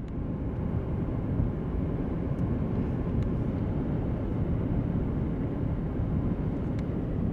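Steady low rumble of outdoor ambience, with no tune or pitch to it. It swells to full level within the first second.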